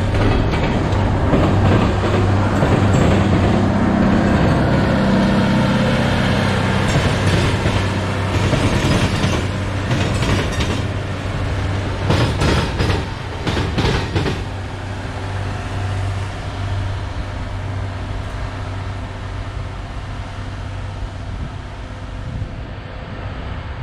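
Rail work train rolling past: a low steady engine drone, then a run of sharp wheel clacks about halfway through as the last cars cross the rail diamond, fading as the train moves away.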